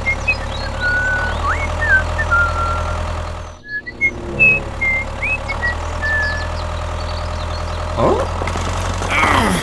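A small motor running steadily, with short high chirps over it; the drone drops out briefly about three and a half seconds in.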